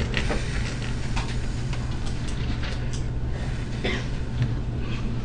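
Steady low room hum, with a few faint short scratches and rustles as a felt-tip marker writes on grid paper, one about four seconds in.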